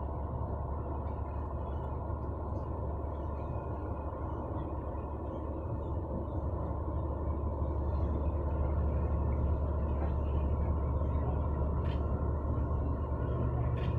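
Low, steady rumble of a large car-carrier ship's engines and machinery as the vessel passes close by, growing a little louder about halfway through.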